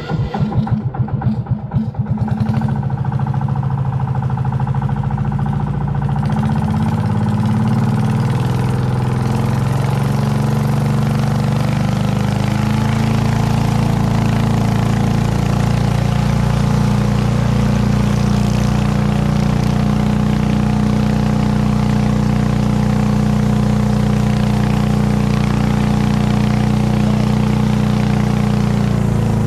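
A small boat's engine comes in loud and uneven for about two seconds, as it does when starting or throttling up, then runs at a steady speed.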